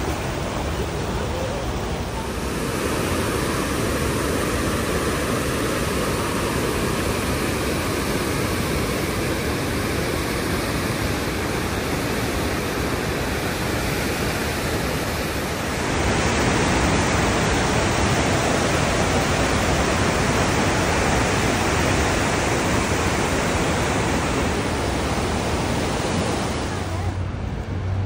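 Loud, steady rush of a fast, churning glacial river running through rapids. The rush shifts in level and tone twice, about two seconds in and again just past halfway.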